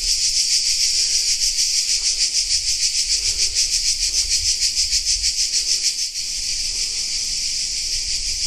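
Loud chorus of cicadas shrilling in the summer trees, a dense high buzz pulsing about five times a second that turns into a steadier hiss about six seconds in.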